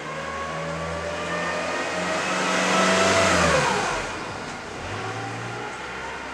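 A motor vehicle driving past: its engine sound grows louder to a peak about three seconds in, then drops in pitch and fades as it goes by.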